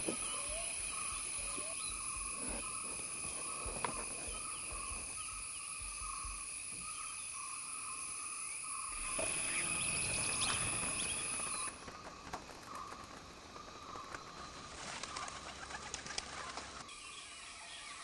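Outdoor forest ambience with birds calling over a steady high background, and a louder rush of wing flaps about nine seconds in as a flock of birds takes off.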